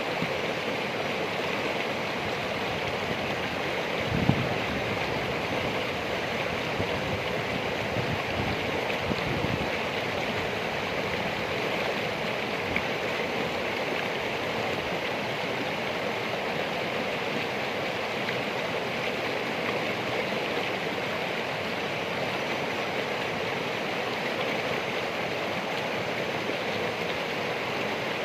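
Steady rushing of flowing stream water. A brief low thud comes about four seconds in, and a few softer low thuds follow around eight to ten seconds.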